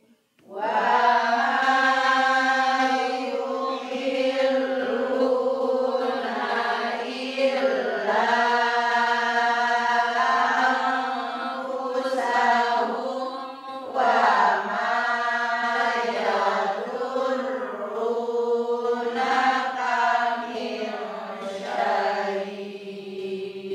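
A man reciting the Quran unaccompanied in a slow melodic chant, drawing each phrase out into long held, wavering notes with short breath pauses between phrases.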